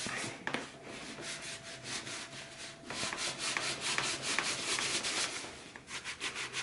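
Wool sock rubbed quickly back and forth along the waxed, dyed edge of a leather knife case, a run of dry rubbing strokes as it burnishes the edge.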